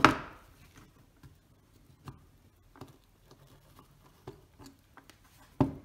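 Small metal clicks and light scrapes of a lens spanner working a just-loosened threaded ring off a Zeiss Ikon Contaflex IV shutter, with a sharp clack right at the start and another near the end.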